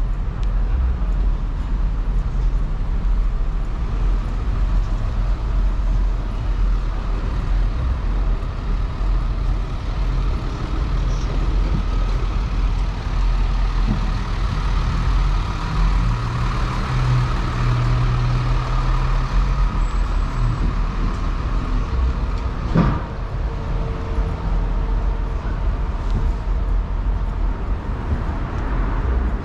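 City street traffic: a steady rumble of passing vehicles, with a heavy vehicle's engine running loudest a little past the middle, then one sharp knock.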